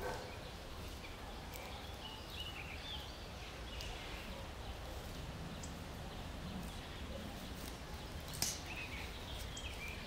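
Outdoor ambience: a steady low rumble of wind with a few short, faint small-bird chirps, and one sharp click late on.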